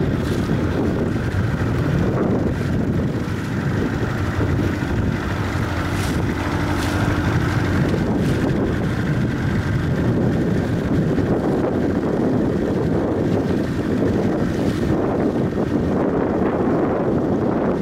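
Wind buffeting the microphone and water rushing and splashing along the hull of a small inflatable boat under way, over the steady hum of its outboard motor.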